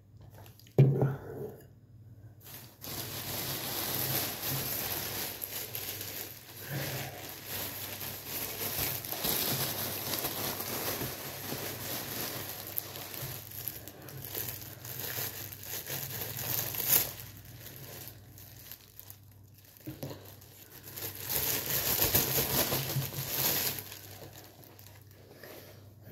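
Thin plastic bag crinkling and rustling as flatbreads are handled inside it, coming in waves with short lulls. A single sharp knock about a second in, from a glass being set down on the counter.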